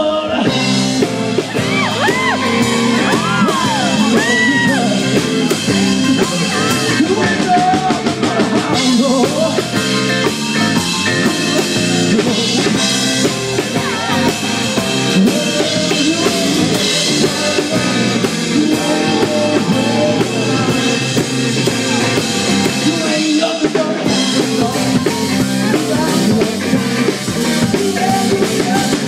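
Live rock-and-roll band playing loud and continuous, a male lead vocal over drum kit and amplified instruments.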